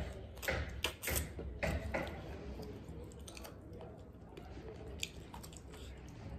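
Close-up eating sounds of people eating rice and chicken curry with their hands: wet chewing, lip smacks and squishing of soft food, with a cluster of sharp smacks in the first two seconds and fainter ones after.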